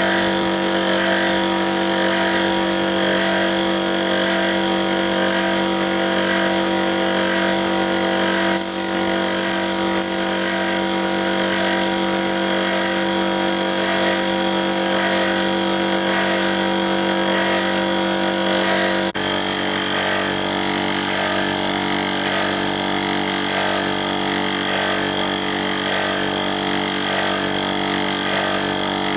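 Air-compressor motor running steadily with an even hum. From about a third of the way in, a suction-feed spray gun on its air hose hisses in repeated bursts as finish is sprayed onto wood.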